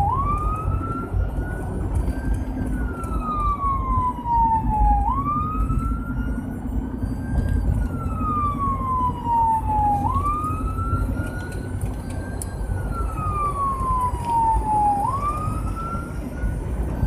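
Emergency vehicle siren on a slow wail, its pitch climbing quickly and then sliding slowly back down about every five seconds, over the steady low rumble of the engine and road, heard from inside the cab of a responding fire department vehicle.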